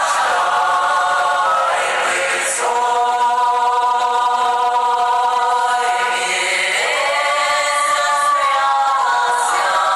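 Music made of long held chords with a choir-like sound, each chord sustained for several seconds and sliding into the next about two and a half and seven seconds in.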